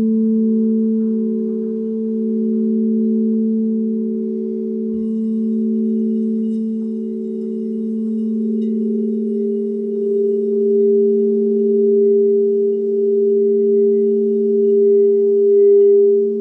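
Alchemy crystal singing bowls sung by a mallet circled around the rim, giving two sustained, steady tones, a lower and a higher one, that waver slowly in loudness as they beat together. The higher tone swells louder about ten seconds in.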